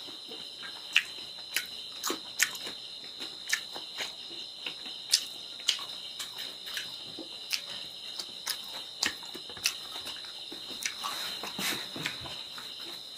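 Close-up wet chewing and lip smacking as pork is eaten by hand: irregular sharp smacks, about two a second. A steady high-pitched whine runs underneath.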